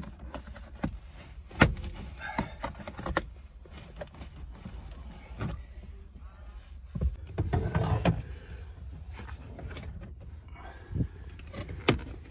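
Plastic door sill trim strip of a 1997 Toyota Corolla being pulled loose by hand: a series of sharp clicks and knocks as its clips give, with a denser rattling clatter about seven seconds in.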